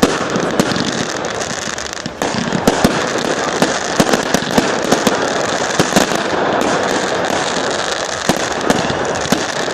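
Fireworks going off in a dense barrage: a continuous crackling hiss with many sharp bangs, busiest in the middle stretch.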